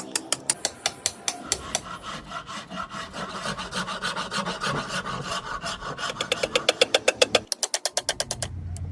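A hand file or rasp worked on the axe in quick, even back-and-forth strokes, about four or five a second, coming faster near the end and then stopping.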